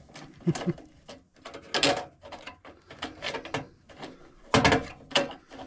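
Hands working on parts and wiring inside a furnace cabinet: a run of irregular clicks, knocks and rattles, with the loudest knock about four and a half seconds in.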